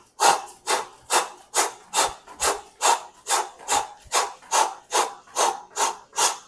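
Sneakers scuffing and tapping on an exercise mat during fast mountain climbers: a sharp swish with each foot switch, evenly spaced at a little over two a second, about fifteen in all.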